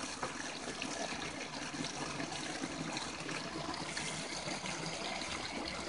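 Steady running and trickling water: a creek flowing, with hose-fed water pouring through a Gold Cube concentrator.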